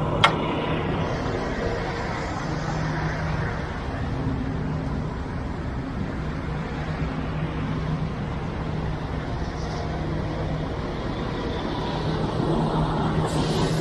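Ready-mix concrete truck's diesel engine idling steadily, with one sharp click just after the start. Near the end, a hose nozzle starts hissing as it sprays water to wash the concrete tools.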